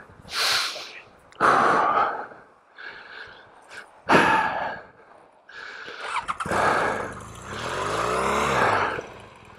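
BMW R1250 GS flat-twin engine given several short bursts of throttle, then a longer rev that climbs and falls near the end, as the rear tyre spins and throws loose volcanic cinder while the stuck bike is worked free.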